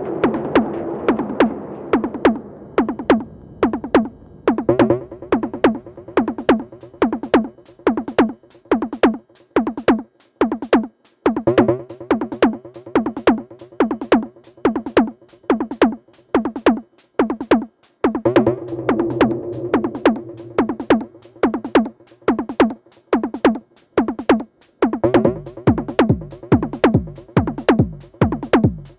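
Glitchy electronic music through a Befaco Iroi effects module, with delay, reverb and distortion: a fast, steady run of short pitched hits, each dropping in pitch. A held droning tone swells in and fades out several times.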